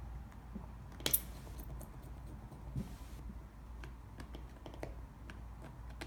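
Light, scattered clicks and taps of small repair tools against a phone's internal parts and screws, the sharpest click about a second in.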